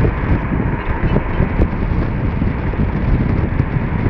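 Wind rushing in at an open car window and buffeting the microphone, over the steady road noise of the moving car.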